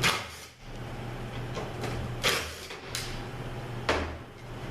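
A few short clacks and scrapes of hand tools and bolts as the bolts holding a 904 transmission valve body's channel plate are taken out, over a steady low hum.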